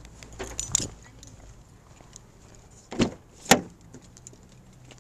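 Keys jangling, then a van's driver door unlatched and pulled open with two sharp clunks about three seconds in.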